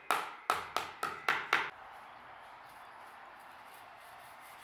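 A white-headed mallet striking a hardwood dovetailed board six times in quick succession, roughly four blows a second, with a sharp knock on each blow; then the blows stop.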